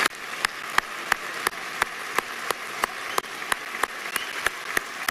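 Audience applauding, with one person's claps close to the microphone standing out loud and evenly spaced, about three a second.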